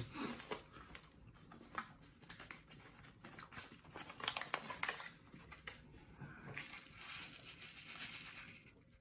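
Candy wrapper of a strawberry Pop Rocks packet crinkling and tearing as it is handled and opened, a run of irregular small crackles and clicks.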